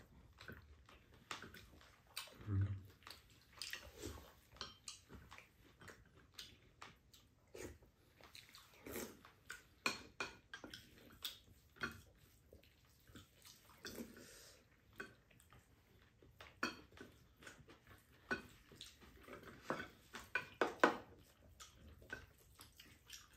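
Spoons and chopsticks clinking lightly against ceramic bowls during a meal, with scattered chewing sounds. A soft low thump comes about two and a half seconds in.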